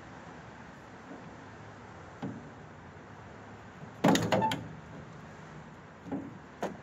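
2008 Ford F-250 plastic tail light housing being pried from its mounting: a quick cluster of sharp clicks and clunks about four seconds in, as its tabs let go, with lighter knocks before and after.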